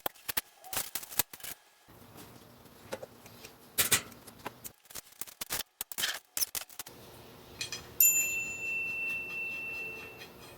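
Clicks, knocks and clatter of metal shelving-rack parts being handled and fitted together. About eight seconds in, a louder knock sets a metal part ringing with a high tone that fades over a couple of seconds.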